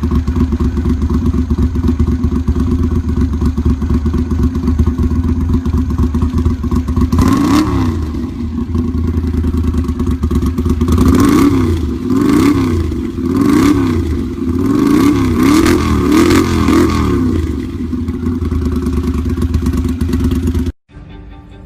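Modified Honda CX500 motorcycle's V-twin engine idling steadily, then blipped: one rev, a pause, then a quick run of about six throttle blips, each rising and falling. It settles back to idle and cuts off abruptly near the end.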